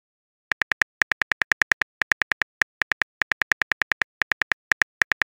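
Text-message app keyboard typing sound effect: rapid short clicks in quick runs with brief pauses, letter by letter, starting about half a second in.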